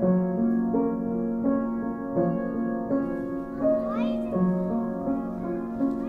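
Slow, gentle piano music: single notes struck about every three quarters of a second over a held low note, part of the film's original score. A brief high, wavering sound rises above the music about four seconds in.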